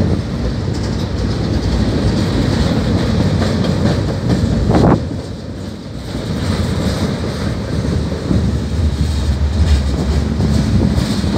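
Freight cars of a long train rolling past: a steady rumble of steel wheels on the rails with clickety-clack, and one loud clank about five seconds in.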